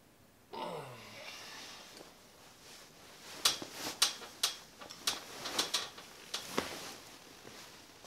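A person lets out a long sigh or groan that falls in pitch, then a quick run of about a dozen sharp clicks and knocks over some three seconds, like small objects being handled.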